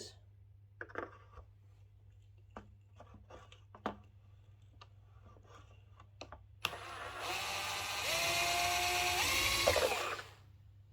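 A few small clicks and knocks of handling, then about two-thirds of the way in a Bosch cordless drill driving a screw in the speaker cabinet runs for about three and a half seconds, its pitch stepping up near the end before it stops.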